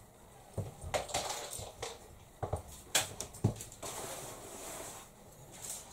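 Plastic packaging crinkling and rustling, with several light knocks, as roller blind parts, the pull cord and the metal roller tube, are handled and unwrapped. The knocks come in the first half, and a longer rustle follows.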